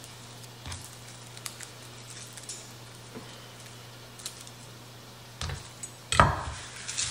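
Papery garlic skins crackling with small faint clicks as cloves are peeled by hand, over a low steady hum. About six seconds in, a louder knock and scrape on the wooden cutting board as the knife is taken up and the skins are swept off.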